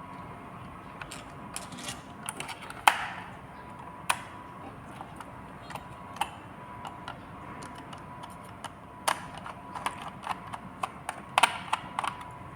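Irregular clicks and knocks of hand tools and small metal parts being worked while a display panel is fitted into a pallet strapping machine, with a few sharper knocks standing out, over a faint steady tone.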